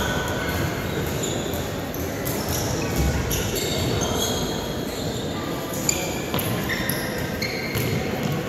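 Indoor soccer game on a hardwood gym floor: sneakers squeaking in short, scattered chirps as players run and turn, a ball thud about three seconds in, and spectators' voices.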